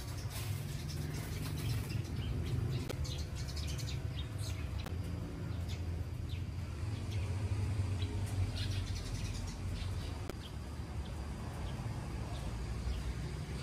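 Birds chirping now and then in short runs of quick high notes, over a steady low outdoor rumble.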